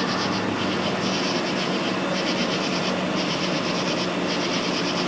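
Night insects calling in pulsing bursts about once a second, over a steady low hum.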